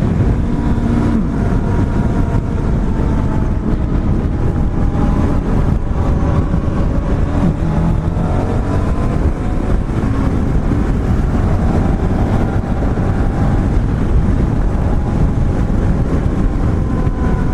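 Motorcycle at freeway speed: engine running under steady wind and road noise, with faint pitched tones wavering up and down. The tires sound not normal, the sign of a tire losing pressure.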